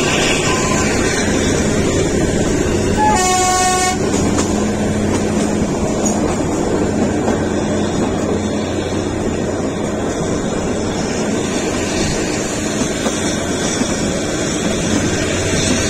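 Kalka–Shimla narrow-gauge toy train running, with a steady running noise and one short horn blast about three seconds in.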